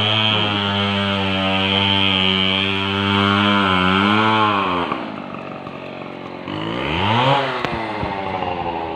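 Small motorcycle engine running under way, steady at first, then easing off about five seconds in before revving up briefly and winding down again.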